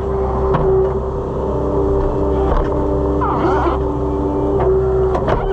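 Skid steer loader running steadily at working speed, with a steady whine over the engine and a few short knocks as the tree shear attachment is worked.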